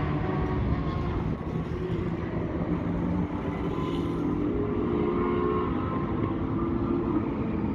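Mazdaspeed Miata's engine idling steadily, a low rumble whose pitch wavers slightly.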